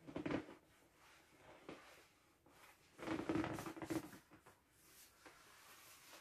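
Inflated PVC swim ring rubbing against itself and the fursuit paws as it is handled, in two bouts: a short one at the start and a longer one about three seconds in.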